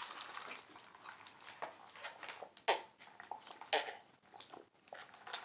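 A person drinking from a cup in long swallows, with two loud gulps about a second apart near the middle and fainter swallowing sounds around them.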